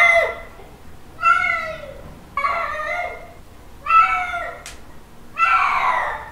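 Male domestic cat giving mating calls: a string of drawn-out meows about every one and a half seconds, each arching up and then falling away in pitch.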